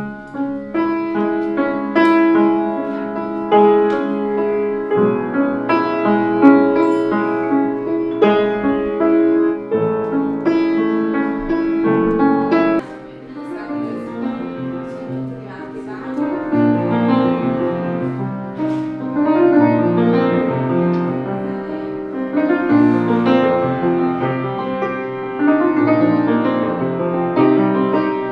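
Piano music, chords under a melody, starting suddenly.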